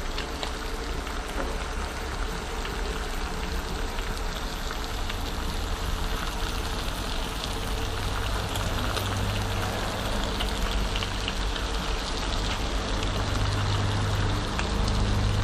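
Beef bacon sizzling steadily on a hot Blackstone flat-top griddle, with a low steady hum underneath.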